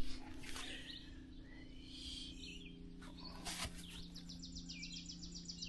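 Small birds chirping outdoors over a steady low hum, with a fast, even trill starting about four and a half seconds in.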